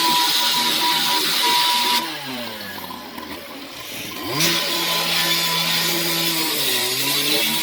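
A gas-powered saw's engine running at high speed. About two seconds in it drops toward idle, and about two seconds later it revs back up to a steady high speed.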